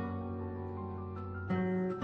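Background music on plucked acoustic guitar, sustained notes ringing, with a louder new chord struck about one and a half seconds in.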